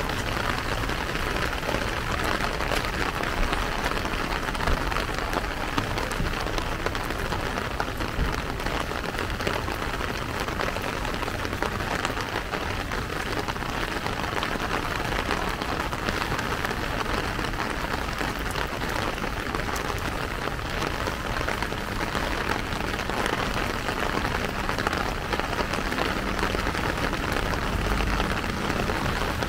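Steady rain falling on a plastic umbrella: an even hiss made of many small, close-spaced drop hits.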